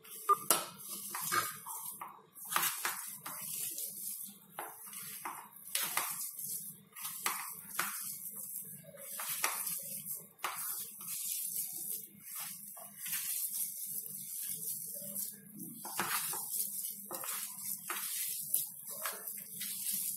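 Hands squishing and kneading wet grated beetroot into mashed potato in a steel bowl: irregular soft squelches and rustles over a low steady hum.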